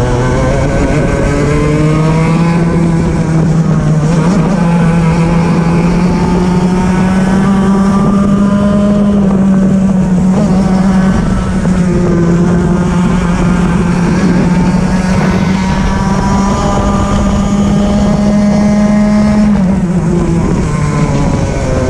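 Racing kart engine heard onboard at full throttle: its pitch climbs over the first couple of seconds, holds high and steady for most of the run, then drops near the end as the throttle comes off.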